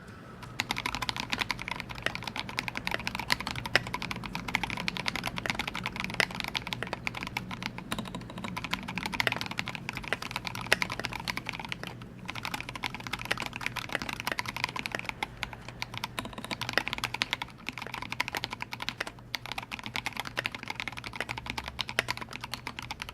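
Fast, continuous typing on a Duck Orion V2 custom mechanical keyboard with vintage Cherry MX Black linear switches (58 g springs) in an aluminium plate, under SA-profile keycaps. The keystrokes come in quick runs, with brief pauses twice.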